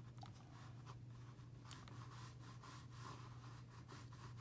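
Faint rubbing and scratching of a fine watercolor brush stroking across paper, over a steady low hum.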